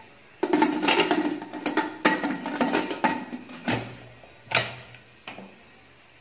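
Metal pressure cooker lid being fitted and closed on the pot: a run of metal clatter and scraping clicks, then a few separate knocks, the loudest about four and a half seconds in.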